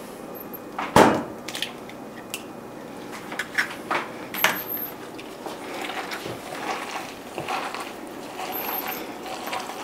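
A sharp knock about a second in and several lighter clicks as an egg is opened over a stainless steel mixing bowl. From about halfway, gloved hands squish and mix the egg into a canned-tuna patty mixture in the bowl.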